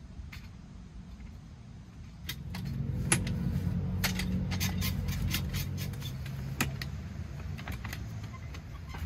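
A vehicle engine comes in about two seconds in and runs steadily, with scattered metallic clicks and clinks over it.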